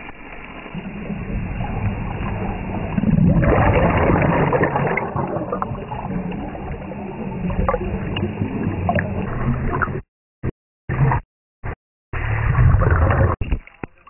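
Water gurgling and rushing, loudest about three to five seconds in, broken by several short, abrupt drops to silence about ten seconds in.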